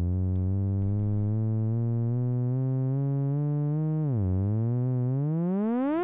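Alchemy synthesizer in Logic Pro X playing a single-note pitched riser. One buzzy sustained note creeps slowly upward, dips briefly about four seconds in, then sweeps steeply upward, growing brighter as its filter cutoff opens.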